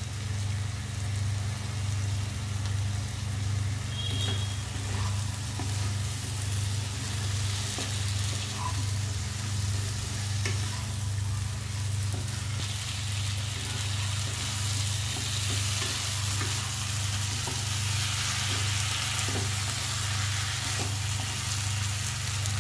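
Capsicum, onion and baby corn sizzling and frying in spiced masala in a pan while being stirred, with occasional clicks. A steady low hum runs underneath.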